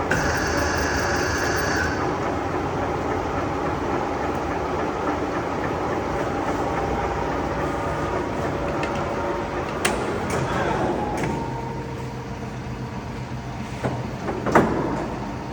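STANKO 1M63 engine lathe running, a steady mechanical noise from the headstock drive. About eleven seconds in it drops quieter and leaves a steady hum, with a couple of sharp knocks near the end.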